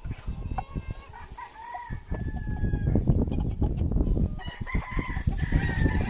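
Chickens calling: short clucks and crow-like calls, with a low rumbling noise that grows louder from about a third of the way in.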